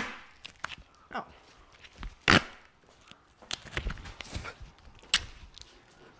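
A few sharp knocks and clicks, the loudest at the start, about two seconds in and about five seconds in, with faint handling noise between them.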